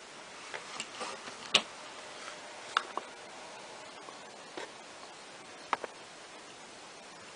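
Opened-up Airthereal AH1000 ozone generator running: a steady hiss with irregular sharp ticks, the loudest about one and a half seconds in and a quick pair near the end.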